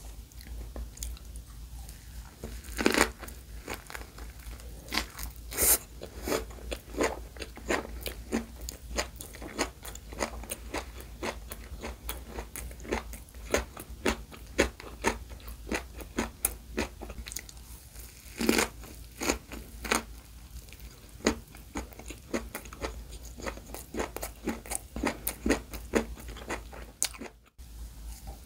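Close-miked biting and chewing of rice-free gimbap: seaweed wrapped around egg, raw cucumber, carrot and pickled radish, giving a steady run of crisp crunches. Two loud bites stand out, one about three seconds in and one past the middle.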